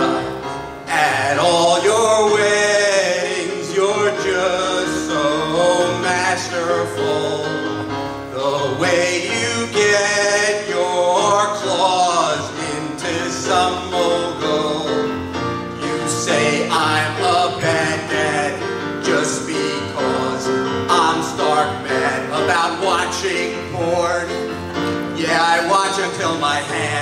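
A man singing a song into a microphone with instrumental accompaniment, his voice held and wavering on long notes.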